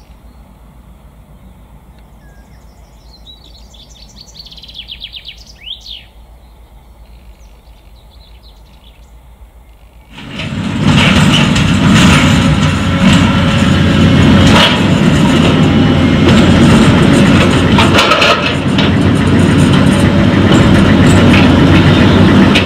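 Birds calling faintly for about ten seconds, then a sudden change to loud heavy diesel machinery running, with repeated metallic clanks and rattles over a steady low engine sound.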